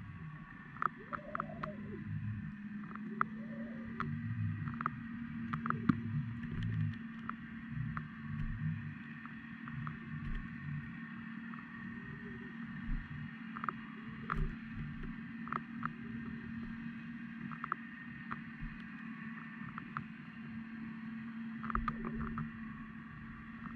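Underwater sound picked up by a submerged camera: a steady low hum, scattered sharp clicks and ticks, and a few short low calls that rise and fall.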